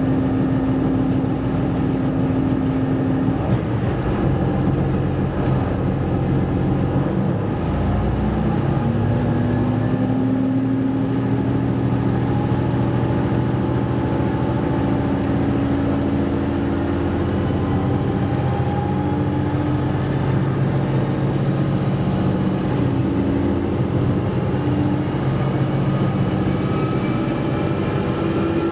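KiHa 127 series diesel railcar under way, its diesel engine note rising: it shifts about 3 seconds in, sweeps up about 8 seconds in, then climbs slowly as the train gathers speed, over the steady rumble of wheels on rail.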